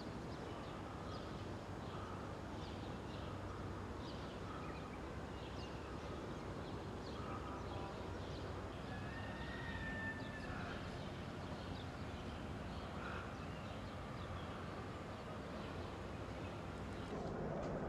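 Outdoor ambience: small birds chirping over a steady background hum, with one longer whistled note about halfway through.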